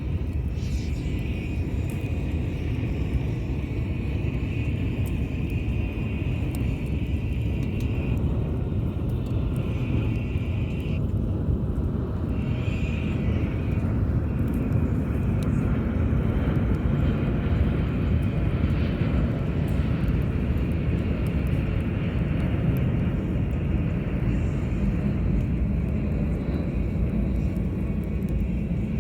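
Steady low outdoor rumble, with a faint high hum that fades in and out several times.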